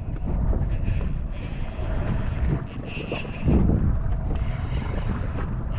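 Wind buffeting the microphone on an open boat at sea: a steady low rumble, with a louder gust about three and a half seconds in.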